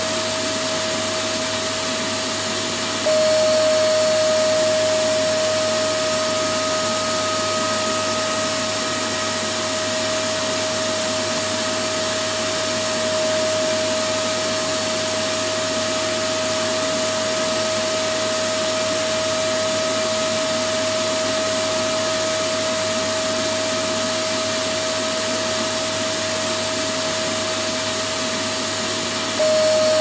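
Vacuum cleaner running steadily: a constant rushing hiss with a high motor whine held on one pitch. About three seconds in, and again near the end, the level steps up slightly and the whine drops a little in pitch.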